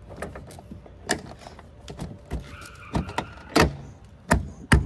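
Plastic rear bumper cover of a 10th-gen Honda Accord being pushed back onto its clips by hand: a run of sharp clicks and snaps that turn into louder knocks with a low thump in the last second and a half.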